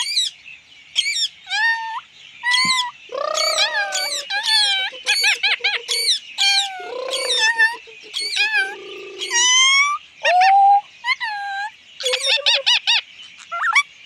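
Rose-ringed parakeet calling in a rapid series of short, shrill screeches. Twice, about 3 s and 7 s in, it gives a longer, lower, grating call.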